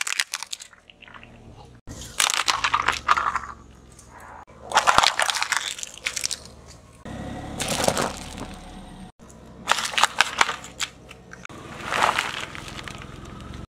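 A car tyre rolling over and crushing small objects such as plastic drinking straws, toys and paper, heard as about six separate bursts of crunching and crackling a couple of seconds apart.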